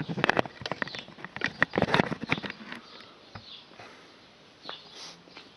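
Camera and tripod handling noise with footsteps on packed dirt: a flurry of irregular knocks, clicks and scrapes over the first two and a half seconds as the camera is carried and set down, then only a few faint ticks.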